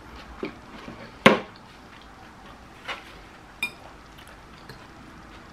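Metal fork clinking and scraping in a bowl of pasta salad while she chews: a handful of separate short clicks and clinks, the loudest about a second in, one a little after three and a half seconds with a brief ring.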